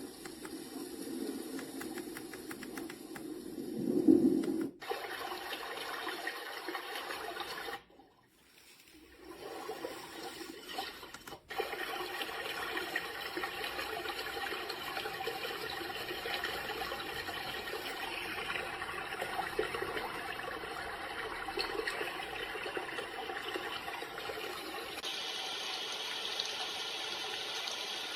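Momcozy white noise machine playing its built-in sounds: a steady water-like rushing noise that changes to a different sound several times. There is a loud swell about 4 s in and a brief drop to near silence around 8 s. The sound changes again about 11 s in and turns to a higher hiss near the end.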